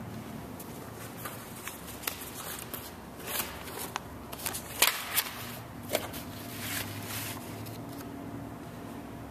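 Handling noise from a handheld camcorder being carried and moved: scattered light clicks, taps and rustles, the sharpest a little before five seconds in.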